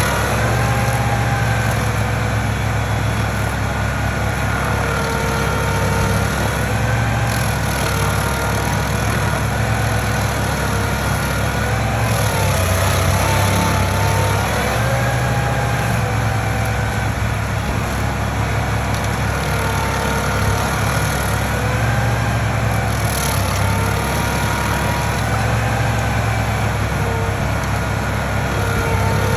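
Engine of heavy stump-removal equipment running steadily, its pitch wavering slightly up and down as the load changes.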